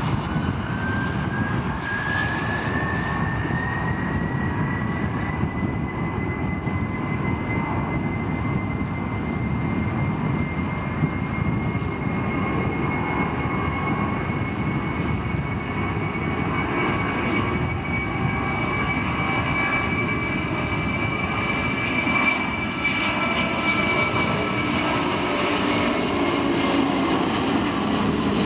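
Airbus A310-300's twin turbofan engines at takeoff thrust during the takeoff roll: a loud, steady jet rumble. A whine climbs in pitch over the first few seconds as the engines spool up, then holds steady.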